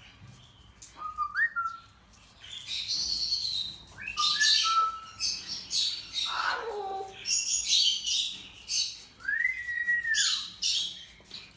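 Moluccan cockatoo calling: a string of short whistles sliding up and down in pitch, mixed with raspy, hissy calls. About halfway there is a long falling whistle, and near the end a long arched whistle.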